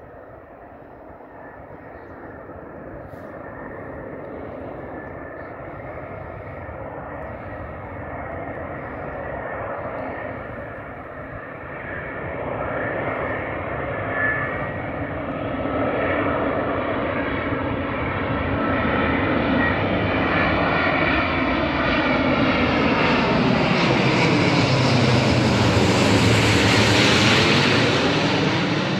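Airbus A350's Rolls-Royce Trent XWB turbofans on approach to land, growing steadily louder as the airliner closes in and passes low overhead near the end, where a sweeping, swirling whine rides over the jet roar.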